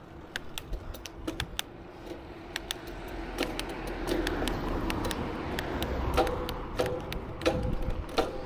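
Bicycle being ridden, with irregular sharp clicks and rattles from the bike over a low rumble of wind on the microphone. The rumble grows louder about three seconds in.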